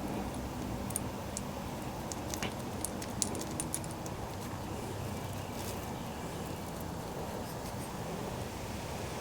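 Light handling noise from small plastic toy parts and plastic wrap: a scatter of small clicks and ticks, mostly in the first few seconds, over a steady low background hum.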